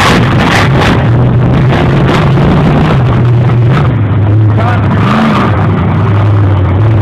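Monster truck engine running loud, its pitch stepping up and down as the driver works the throttle, with a quick rev rising and falling a little after five seconds in.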